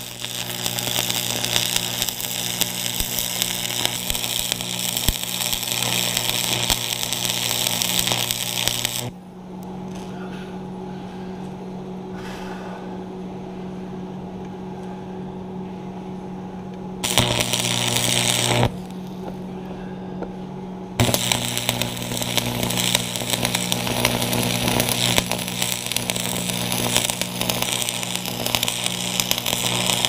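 Electric arc welding a steel chain hook onto a skid steer bucket: the arc crackles and sizzles steadily. It stops after about nine seconds, strikes again for a two-second burst a little past halfway, and then runs on through the last third. A steady low hum carries on through the pauses.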